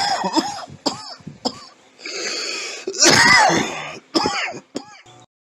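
A person's voice making short non-speech sounds, coughing and throat-clearing, with brief pitches that rise and fall. It cuts off suddenly about five seconds in.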